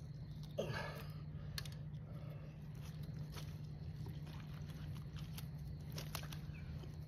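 Faint crunching and scraping handling noises with a few sharp clicks, over a steady low hum, and a short pitched sound about half a second in.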